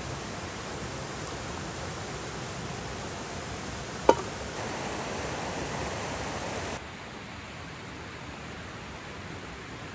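Steady rush of a mountain stream, with a single sharp click about four seconds in. The rush gets a little louder just after the click, then drops to a lower level about seven seconds in.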